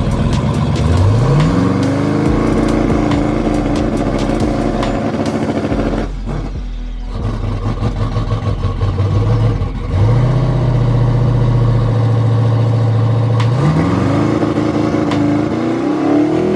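Drag car engine revving up and holding steady high revs, dropping away about six seconds in, then holding steady revs again before climbing once more near the end.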